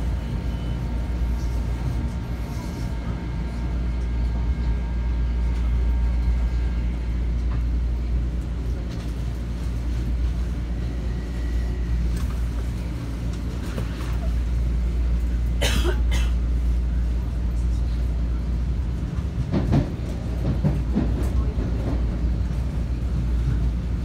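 Metro-North M7 electric railcar running, heard from inside the car: a steady low rumble of wheels on rail. A faint thin whine sits over it for the first several seconds, and a few sharp knocks come near the middle and later on.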